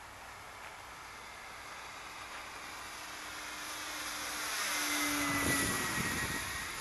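Electric motor and propeller of a 1.9 m 3D-printed Vought F4U Corsair model airplane making a low pass. It grows louder as it approaches, peaks about five and a half seconds in, and drops in pitch as it goes overhead.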